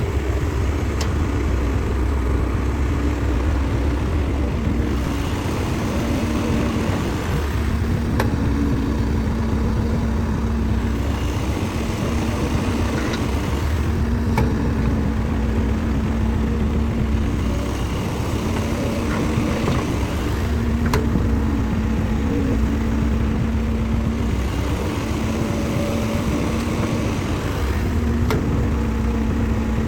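Diesel engine of heavy construction machinery running steadily with a low rumble and a hum that comes and goes, plus a few sharp knocks.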